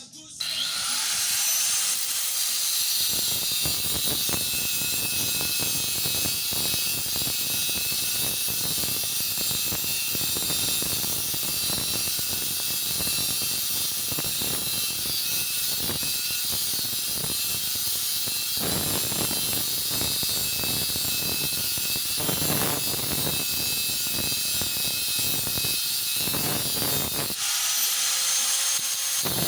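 A 650 W electric grinder, running off a 12 V DC to 220 V AC inverter, cutting steel bar. The motor starts with a rising whine, then gives a harsh, continuous cutting noise as the disc bites into the steel. Near the end it briefly runs free before cutting again.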